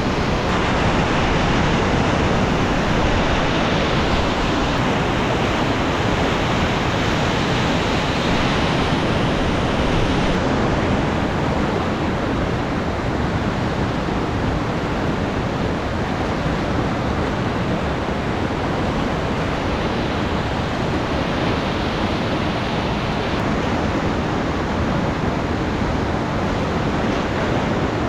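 Whitewater river in high flood water rushing steadily.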